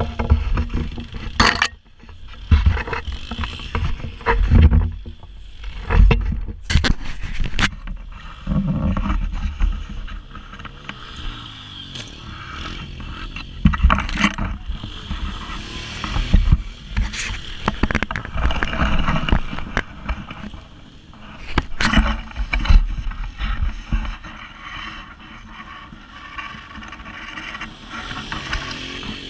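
Off-road vehicle engine running on a rough dirt trail, heard from a camera riding on it, with wind rush and many sharp knocks and scrapes as it bumps over the ground. It grows quieter and steadier near the end.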